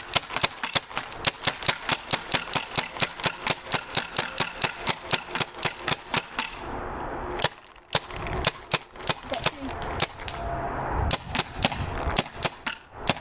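Cronus paintball marker on CO2 fired in rapid semi-automatic succession, about six shots a second. After a brief break about seven seconds in, a further, less even run of shots follows until the hopper is emptied.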